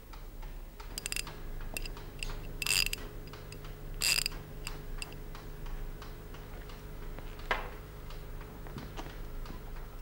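Mechanical clock ticking steadily, about three ticks a second, with a few louder clicks and a faint steady hum underneath.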